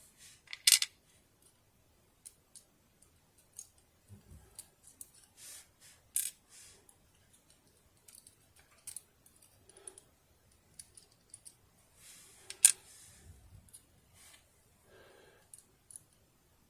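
Small metal clicks and clinks from the discs and internals of a disc detainer lock being handled during disassembly. There is a sharp click under a second in and another about 12–13 seconds in, with light scattered ticks between.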